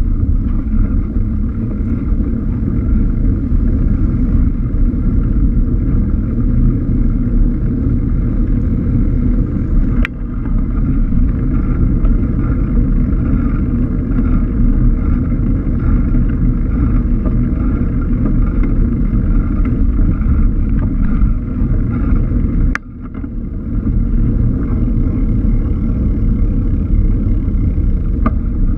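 Wind and road rumble on a bicycle-mounted GoPro while riding, a dense steady low rumble. A sharp click about ten seconds in and another near twenty-three seconds, the second followed by a brief drop in the rumble.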